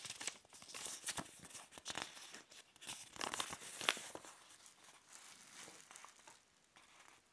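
A folded paper instruction leaflet rustling and crinkling as it is unfolded by hand. The crackling is densest in the first four seconds, then thins out and fades away toward the end.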